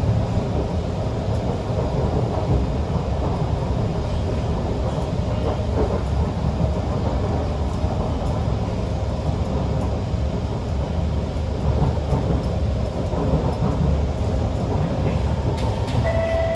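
Kawasaki C151 MRT train running along the track, heard from inside the carriage: a steady low rumble of wheels and running gear. A brief tone begins right at the end.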